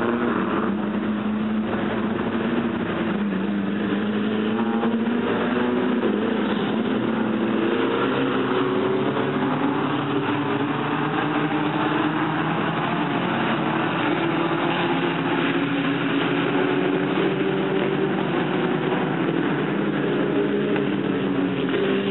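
A pack of dirt-track stock cars racing, many engines running together, their overlapping notes rising and falling as the cars go around the oval.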